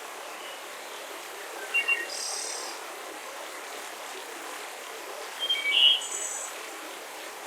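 Forest ambience: birds chirping in short quick notes, once about two seconds in and again near six seconds, over a steady hiss of background noise.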